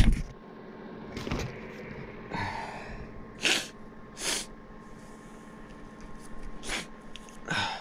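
A man's sneezing fit: a loud sneeze right at the start, then a string of short, sharp sneezes and sniffs, about six in all.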